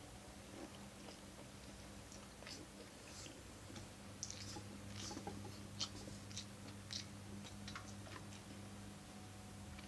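A person eating kimchi noodles close to the microphone: short wet chewing and mouth clicks, scattered through the middle seconds, over a steady low hum.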